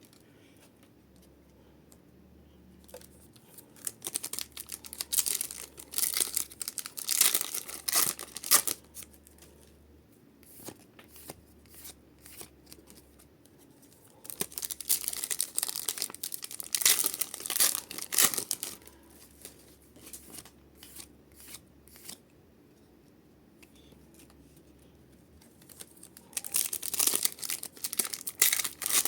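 Pokémon card booster packs being torn open and their wrappers crinkled, in three stretches of rustling with quieter gaps between.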